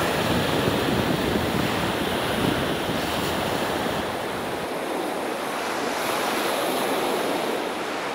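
Steady ocean surf washing onto a sandy beach, with wind buffeting the microphone. The low rumble thins out about halfway through.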